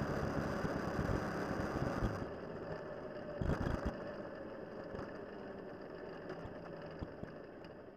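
Motorcycle engine running, then dropping off sharply about two seconds in, leaving a fainter sound with a few scattered knocks as it fades out.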